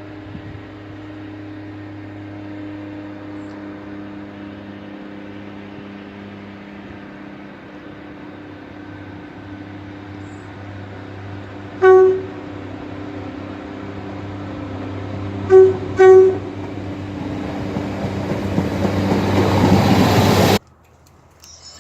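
Train horn sounding three short toots: one about twelve seconds in, then two close together a few seconds later. Under them runs the train's steady engine drone, joined by a rising rumble that grows louder as the train nears, and it cuts off suddenly near the end.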